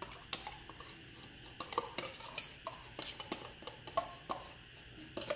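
Spoon scraping and clinking as sweetened condensed milk is emptied from its can: irregular light knocks and scrapes, some with short ringing tones.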